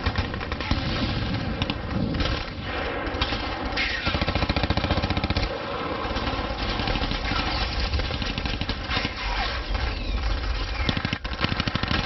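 Battle sound effect: sustained rapid automatic gunfire over a low rumble, with several falling whistles cutting through at intervals.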